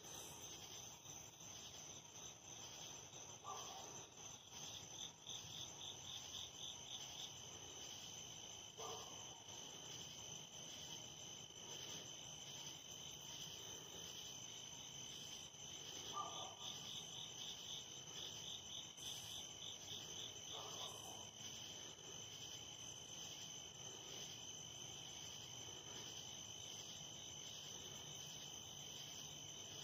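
Faint night chorus of crickets: a steady high-pitched trill, with a second insect's rapid pulsed chirping joining in twice. A few brief, lower calls stand out four times.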